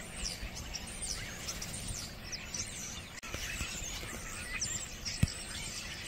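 A flock of small songbirds chirping and calling together, many short overlapping notes at once. One brief knock a little after five seconds in.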